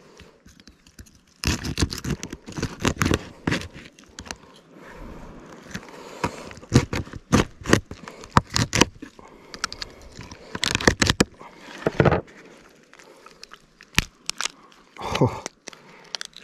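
Painted crayfish shell cracking and crunching as it is split and pried apart, with scraping between the cracks. The cracks come in bunches after a quiet first second or so, and there is one sharp snap near the end.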